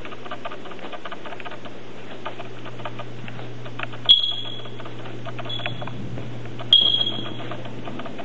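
Two sharp, high-pitched electronic chirps about two and a half seconds apart, each fading quickly, with a fainter one between them, over a steady low hum.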